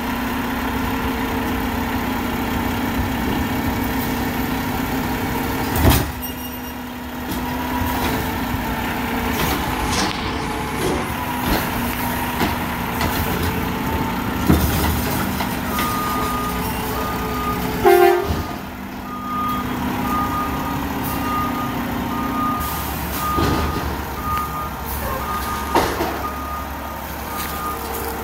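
Garbage truck engine running, with a loud bang about six seconds in and another around eighteen seconds. From about sixteen seconds its reversing alarm beeps about once a second.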